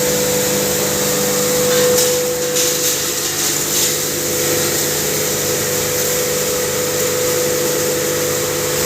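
Electric turmeric pulverizer (hammer mill) running steadily, with a constant whine over a low hum and a wide rushing noise. There is a short spell of crackling rattles about two to four seconds in.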